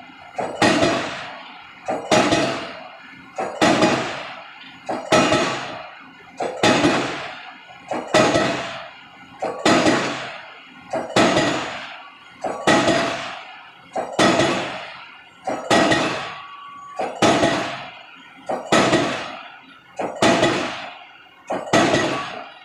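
Diesel pile hammer driving a spun concrete (PHC) pile, striking in a steady rhythm about once every second and a half. Each blow is a sharp bang with a smaller knock just before it, and it rings away before the next.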